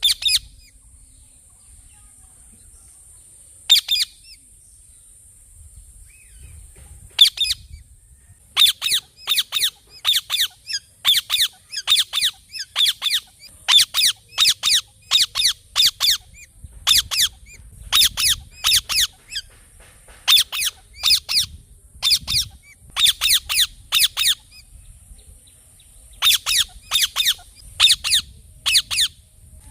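Parrot giving repeated short, shrill screeching calls in quick runs, a few spaced calls at first, then a long rapid series, a brief pause, and another run near the end.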